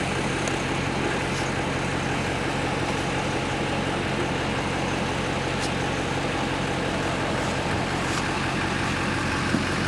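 Car engine running steadily: a constant low hum under an even rush of noise.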